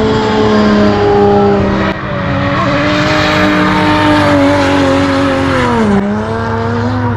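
Drift car engine held at high revs while its rear tyres screech and smoke through a sustained slide. The engine note sags slowly, then dips sharply and climbs again about six seconds in.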